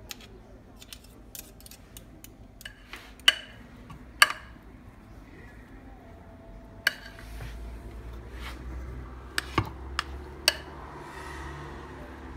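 Metal mixer beater clinking and scraping against a ceramic bowl while stirring thick batter, then batter being scraped out of the bowl into a loaf tin, with scattered sharp clinks of metal on ceramic.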